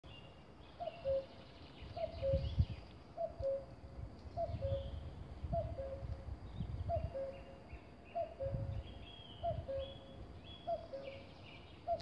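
Male common cuckoo singing its two-note cu-ckoo, the second note lower, repeated about ten times at a steady pace of just over a second apart. Smaller songbirds chirp faintly higher up, and there are low rumbles underneath.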